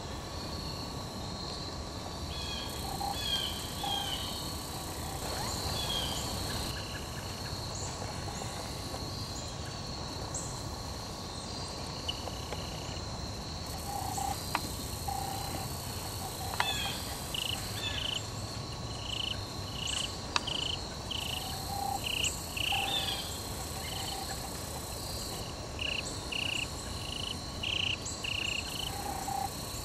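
Outdoor ambience of a steady high-pitched insect drone, with short bright chirps repeated in clusters and a few sharp clicks.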